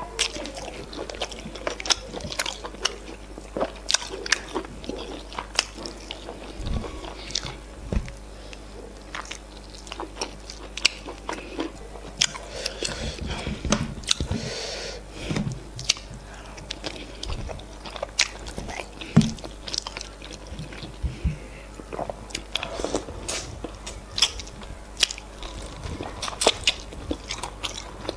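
Close-miked eating sounds: wet chewing, lip-smacking and occasional crunching as efo riro with meat and semolina fufu is eaten by hand, with many short sharp smacks at irregular intervals.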